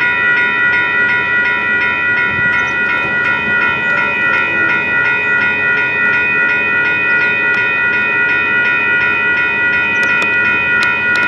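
Two WCH Gen 2 electronic railroad crossing bells ringing together in a fast, steady, repeating high chime. This is the crossing's warning signal that a train is approaching.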